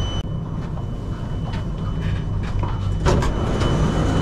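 Singapore MRT train running, heard from inside the carriage: a steady low rumble with scattered clicks and knocks, growing louder from about three seconds in.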